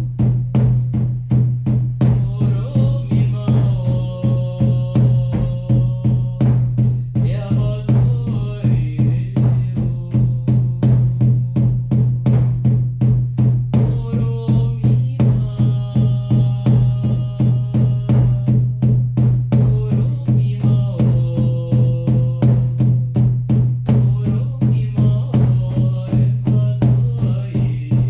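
Shamanic frame drums beaten in a steady, even, fast beat with a deep resonant boom. Over the drumming, voices chant long held notes in several separate phrases.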